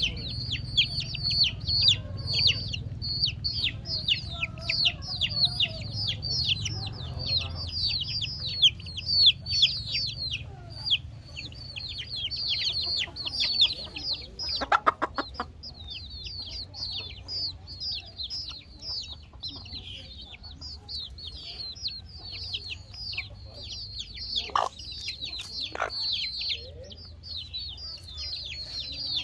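A flock of young chickens keeps up rapid, high-pitched peeping, each peep falling in pitch. A lower, fuller chicken call breaks in about halfway through.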